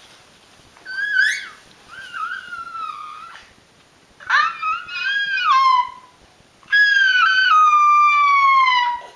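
An animal's high-pitched whining calls: three drawn-out cries, each sliding down in pitch, the last the longest and loudest.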